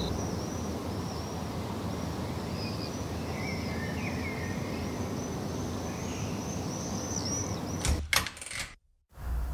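Outdoor ambience: a steady low rumble with repeated high chirping calls over it. About eight seconds in come a couple of sharp knocks, then the sound cuts out briefly.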